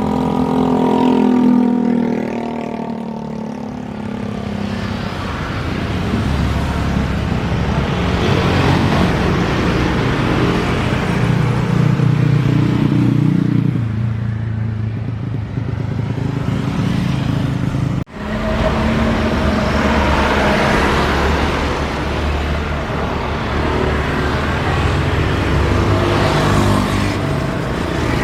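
Loud, steady engine rumble of passing traffic. It is broken by an abrupt cut about two-thirds of the way through, then carries on.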